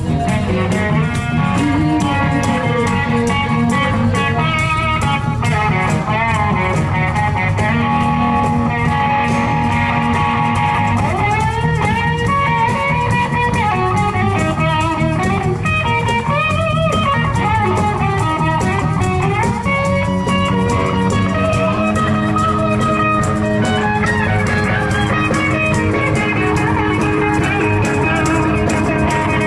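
Live band playing, with an electric guitar leading over bass guitar and drum kit; from about a third of the way in, the guitar line bends up and down in pitch.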